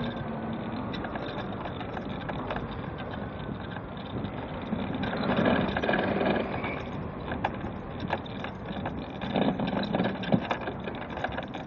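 Road traffic passing on a street, heard from a mobility scooter riding along the pavement: a steady noise that swells about five seconds in and again about nine seconds in, with scattered small knocks and clicks.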